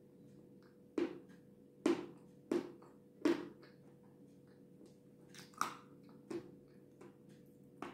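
Close-up chewing of soft, cream-covered cake, with short sharp mouth smacks: four in quick succession in the first few seconds, then a couple more.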